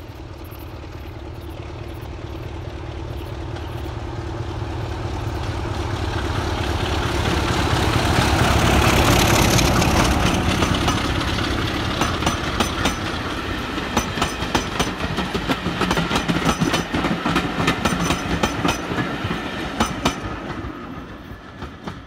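Steam-hauled passenger train approaching and passing, growing louder to a peak about nine seconds in as the locomotive goes by. Then the coaches follow with a run of regular wheel clicks over the rail joints, which stops near the end.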